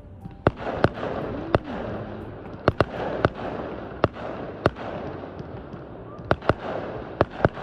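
Aerial fireworks display: about a dozen sharp shell bursts going off at irregular intervals, some in quick pairs, over a continuous rumble and crackle from the show.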